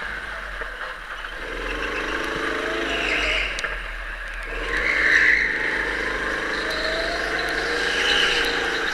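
Go-kart engine running hard through the turns, its pitch rising and falling as the kart accelerates and slows. Short bursts of tyre squeal in the corners, the loudest about five seconds in.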